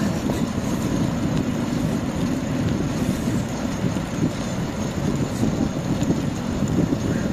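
Wind rushing over the microphone of a camera carried on a moving bicycle: a steady low rumble that does not let up.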